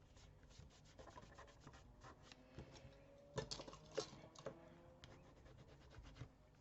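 Faint rustling and rubbing of paper and cardstock being handled and folded along score lines, with a couple of sharper crackles about three and a half and four seconds in.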